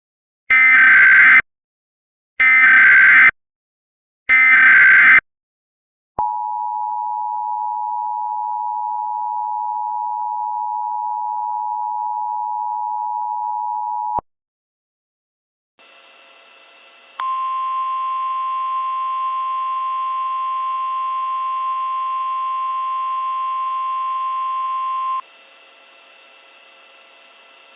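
Emergency Alert System tones: three short bursts of the data-header screech, then the two-tone attention signal held steady for about eight seconds. After a short gap a faint hum comes in, with a louder single steady tone over it for about eight seconds.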